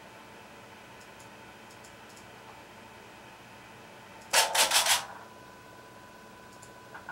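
Linear servo motor axis making a short, fast move: a loud burst of rattling motion noise lasting under a second, about four seconds in. Under it the servo drive holds a faint steady whine, which stands out more after the move.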